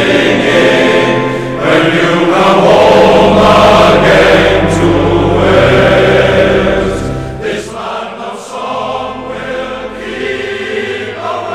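Background music of a choir singing held notes, louder in the first part and softer after about seven seconds.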